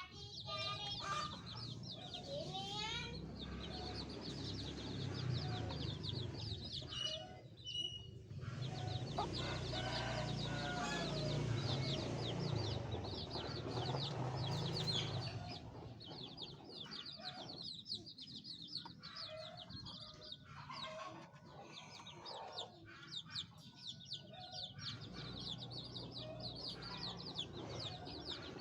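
A flock of domestic chicks peeping without pause, many short high-pitched peeps overlapping, with lower clucking calls from a hen breaking in now and then.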